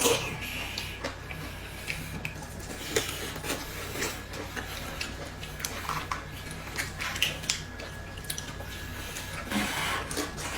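Scattered light clicks and knocks, irregular and spread through the whole stretch, over a low steady hum.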